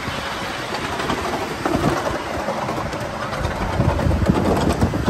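Ride-on miniature railway train running along the track, its wheels rumbling on the rails, the rumble growing louder in the second half with a run of clicks near the end.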